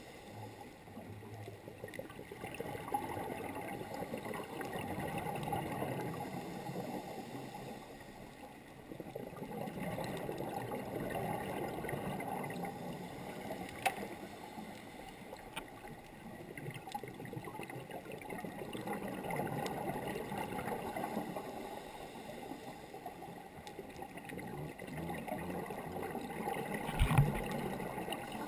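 Underwater scuba exhaust bubbles gurgling past the camera in long swells every several seconds, as a diver breathes out through the regulator. A sharp click about halfway through and a low knock near the end, the loudest sound.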